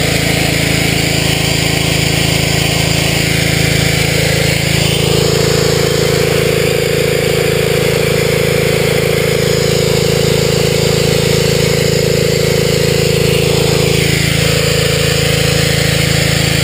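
Snapper 3100 psi gas pressure washer running under load, its Briggs & Stratton 900 series 205 cc engine holding a steady pitch while the wand blasts water onto concrete with a steady hiss.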